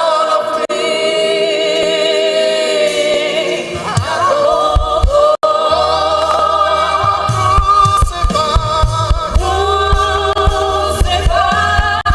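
Gospel choir singing live worship music in held, wavering harmonies. About four seconds in, a low bass line and a regular beat join the voices.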